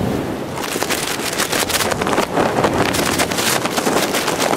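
Gusty storm wind buffeting the microphone over choppy harbour waves slapping and splashing against a stone seawall. Irregular rough gusts and splashes stand out from about half a second in.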